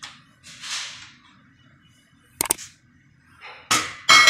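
Steel table frame parts being handled: sharp metallic knocks and clicks, a quick double click about two and a half seconds in. Near the end a steel piece is struck and rings with a clear, bell-like tone.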